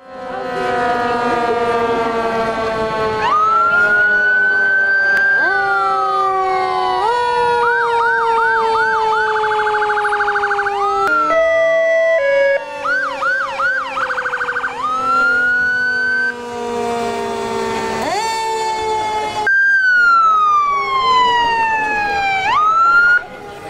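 Several emergency-vehicle sirens sounding together, cycling between slow rising and falling wails and fast warbling yelps, over steady lower horn-like tones.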